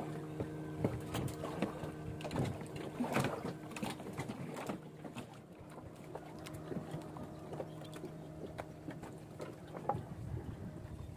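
A boat engine runs with a steady hum that fades out about halfway through. Scattered sharp clicks and knocks sound throughout.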